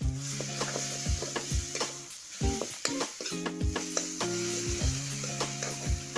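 Chopped onions sizzling in hot oil in an iron kadai, with a spatula stirring and scraping against the pan in repeated strokes, about two a second.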